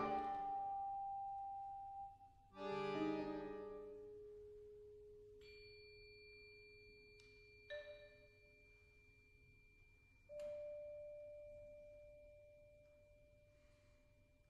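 Sparse avant-garde chamber music for accordion, electric guitar and percussion: a few isolated struck or plucked notes, each left to ring and fade slowly. A high, thin held tone comes in about five seconds in and lasts to the end.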